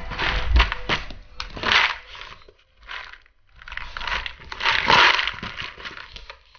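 Clear plastic drink bottle holding kibble, chewed and pushed around on a laminate floor by a Siberian husky puppy. The plastic crinkles and clatters in irregular bursts, with a brief pause about halfway through; the loudest burst comes a little before the end.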